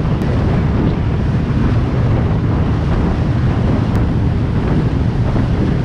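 Steady rush of wind buffeting the microphone aboard a fast-running boat, mixed with the churn of water in its wake.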